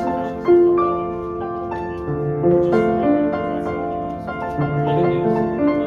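Piano music playing, with held notes and chords changing every half second or so.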